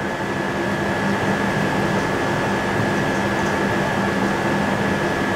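Steady mechanical hum with a constant high-pitched whine running through it, like a fan or air-conditioning unit.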